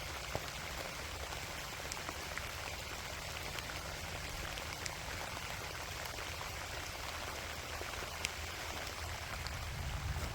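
Light rain falling steadily, an even hiss with scattered drop ticks.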